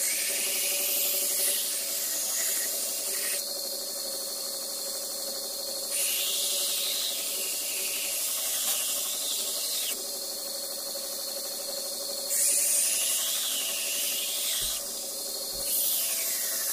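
Belt grinder running with a steady hum while the bevel of a Hults Bruk Arvika axe head is pressed against the belt. It makes a hissing grind in four passes, dropping back to the plain motor hum between them.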